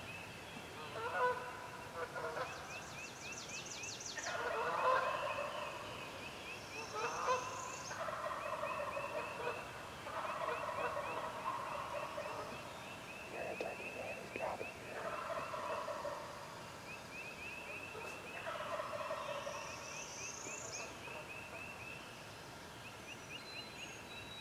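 Wild turkey gobblers gobbling again and again, about seven gobbles a couple of seconds apart, over a steady rapid high chirping of small birds.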